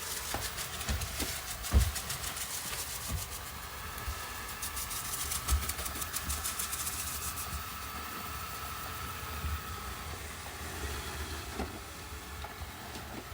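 Robot vacuum cleaner running: a steady whir and hiss with a faint held whine, and a few soft low thumps, the loudest about two seconds in.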